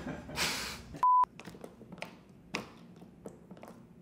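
A short, steady censor bleep about a second in, followed by a scattering of light taps and clicks.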